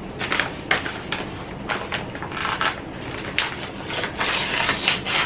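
A bag of cake mix crinkling and rustling as it is handled and opened, in irregular bursts of crackles.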